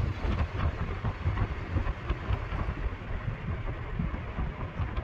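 A car driving along, a steady low rumble of engine and road noise.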